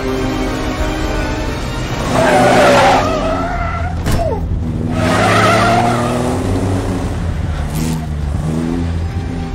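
Car tyres squealing twice, once about two seconds in and again about five seconds in, as the car swerves, over steady dramatic film music.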